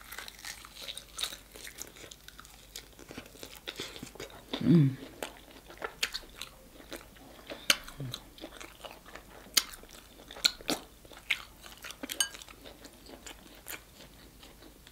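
Close-miked chewing and biting on a grilled pork chop, with many short, scattered wet mouth clicks and crunches. A short hum, falling in pitch, comes about four and a half seconds in.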